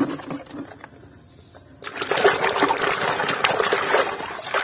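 A knock at the start, then from about two seconds in a hand swishing and splashing through a basin of soapy water, washing plastic toy vehicles.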